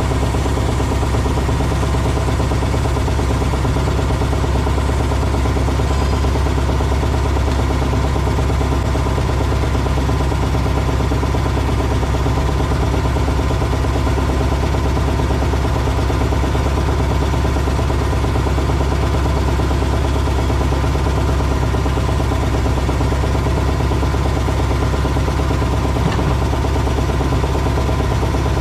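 Machinery running steadily: a constant low engine-like hum that holds the same pitch and level throughout.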